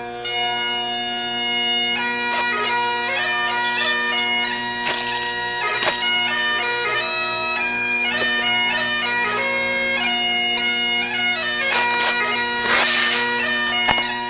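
Bagpipe music: steady drones held under a shifting chanter melody, with a few brief rushes of noise cutting across it.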